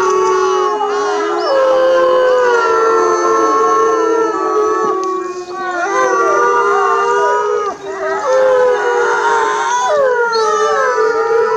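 A pack of timber wolves howling in chorus: several long howls overlap at different pitches, some held steady and some sliding up or down.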